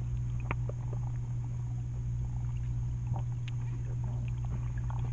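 Muffled underwater sound picked up by a GoPro Hero 7 Black submerged in a pool: a steady low hum with scattered small clicks and pops.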